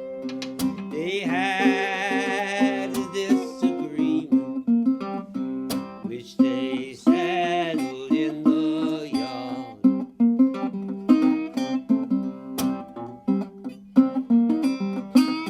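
National Resophonic tricone resonator guitar played with a bottleneck slide in an acoustic blues: picked notes throughout, with two stretches of long wavering slide notes, about a second in and again around seven seconds in.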